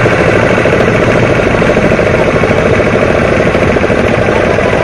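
An engine running steadily close by: a loud, rapid, even chugging.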